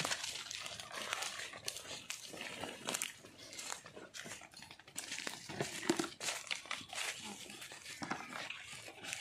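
Footsteps crunching through dry leaf litter, with leaves and twigs crackling irregularly underfoot.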